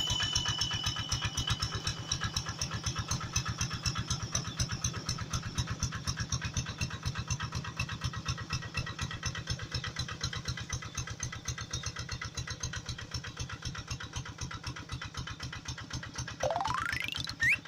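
Tractor engine chugging steadily at idle in a rapid, even beat that slowly fades. A rising whistle-like glide comes in near the end.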